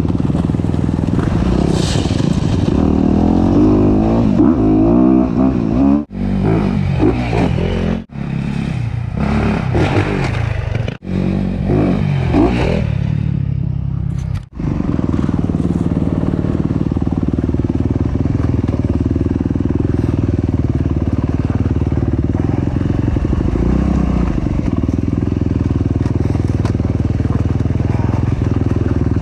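Honda CRF250RX dirt bike's 250 cc single-cylinder four-stroke engine revving up and down on a trail ride, with clatter from the bike. The sound drops out sharply four times in the first half, then the engine runs at a steady pitch.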